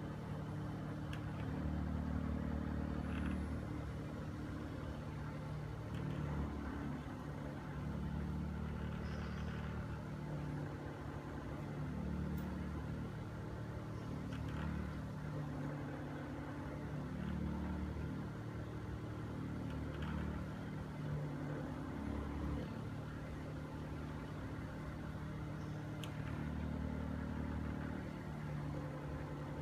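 OSIM OS-338 massager running with its warming function on, a low mechanical hum that swells and eases in a cycle of a few seconds, with occasional small clicks. This is the noisy abnormal sound it makes when the heat is switched on.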